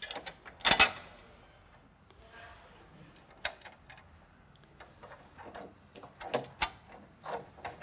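Scattered sharp metallic clicks and taps as a stainless steel bolt, washer and self-locking nut are fitted by hand into an aluminum bracket. The loudest click comes under a second in, and a run of small ticks follows in the last few seconds.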